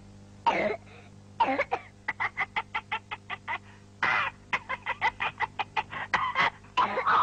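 A cartoon boy coughing in stove smoke, twice, then a cartoon parrot's voice in rapid, choking squawks at about seven short cries a second, with more spluttering squawks and coughs after.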